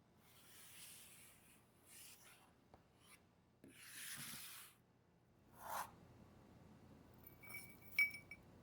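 Kitchen handling sounds: four short rubbing or scraping strokes, then a few light clicks and a sharp clink that rings briefly about eight seconds in.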